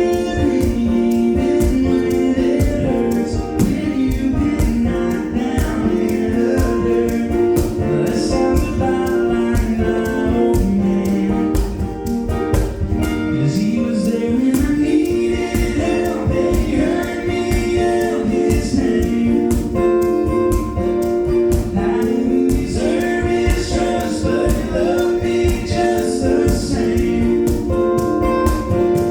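Gospel song: voices singing over a band with a steady drum beat.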